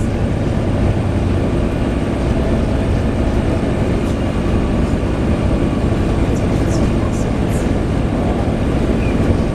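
Volvo B7TL double-decker bus running on the move, a steady low rumble, with a few faint short high squeaks a little past the middle.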